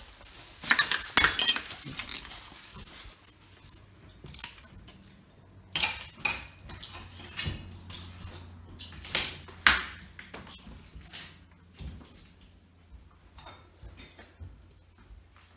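An old glass-paned wooden door is unlatched and pushed open with a loud rattle and clatter about a second in. Then come scattered footsteps, clinks and crunches as feet cross a floor littered with debris.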